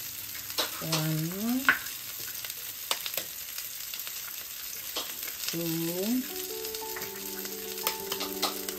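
Sliced onion rings sizzling steadily in a nonstick frying pan, with a few sharp clicks scattered through. Two short rising tones sound about a second in and again near five and a half seconds, and soft background music with held notes comes in about two-thirds of the way through.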